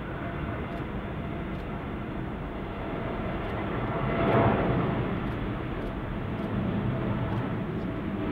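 Jet engines of a Boeing 787 airliner running as it rolls along the runway: a steady rumble that swells to its loudest about halfway through.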